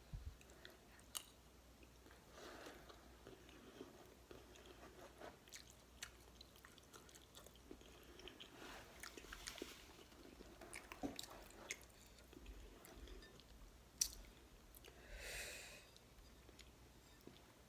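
Faint, close-miked chewing of beef stew: soft wet mouth sounds with scattered sharp clicks.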